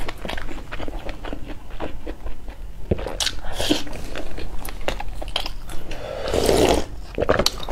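Close-up mouth sounds of someone chewing udon noodles and oden, with many small wet clicks. About six seconds in, a long slurp as broth is drunk straight from the bowl.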